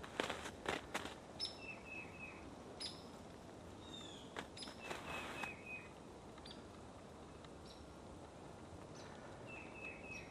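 Footsteps crunching in snow during the first second, then small birds calling: short runs of about four quick notes, repeated three times, with scattered higher chirps in between.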